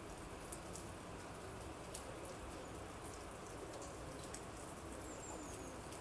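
Faint outdoor background hiss with scattered light ticks, and a short, high, falling chirp about five seconds in.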